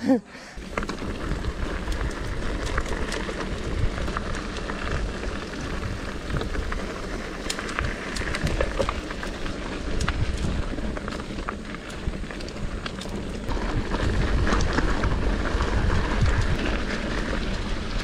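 Mountain bike riding on a muddy dirt trail: tyre noise with frequent small clicks, crackles and rattles over a steady low rumble, getting louder near the end.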